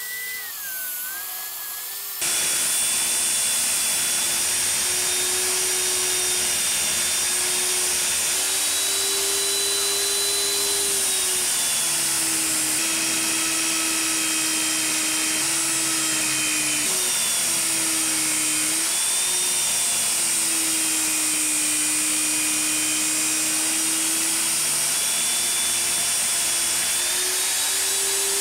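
Electric angle grinder with a sanding disc running while a rusty steel knife blade is ground against it: a steady motor whine over a hissing grind, the pitch sagging and recovering as the blade is pressed in and eased off. It is quieter for the first two seconds, then jumps louder and stays even.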